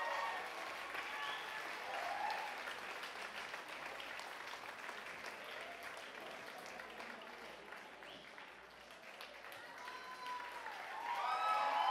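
Audience applauding, with voices calling out. The clapping thins out about eight seconds in, then swells again near the end.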